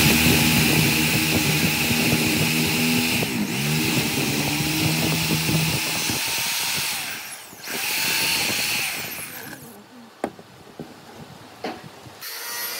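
Electric woodworking power tool running, with a motor hum and a high whine whose pitch dips briefly about three seconds in, as if under load. It stops about seven seconds in, runs briefly once more, and then a few sharp knocks follow.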